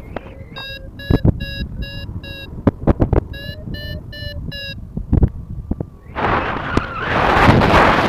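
Paragliding variometer beeping in quick short pulses, about three to four a second, in two runs: the climb tone that signals the glider is rising in lift. A few sharp knocks fall among the beeps, and from about six seconds in, wind rushes loudly over the microphone.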